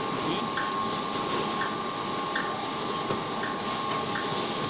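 Clay brick-making machine running: a steady mechanical din with a constant whine and short ticks repeating a little over once a second.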